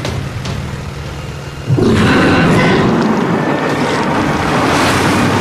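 Outboard motor on an inflatable boat running steadily. Then, a little under two seconds in, a sudden loud rushing rumble cuts in and holds: a film sound effect for a giant crocodile bursting up out of the river.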